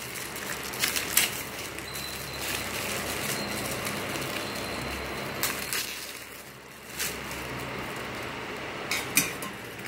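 Plastic packaging crinkling and rustling as the parts of a stainless-steel oil filter are unwrapped and handled, with a few light clicks and taps.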